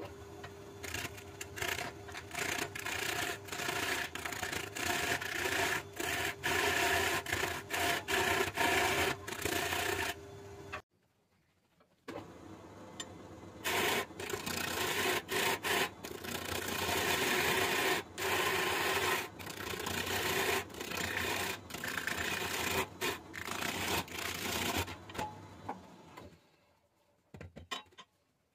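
Wood lathe spinning a large jackfruit log while a hand-held turning gouge cuts into it: a dense, rough scraping over the steady hum of the lathe motor. It breaks off for about a second partway through and dies away near the end as the log stops.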